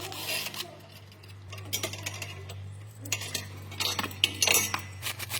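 Irregular metallic clinks and clicks of hand tools and metal parts being handled during work on the automatic transmission, over a steady low hum.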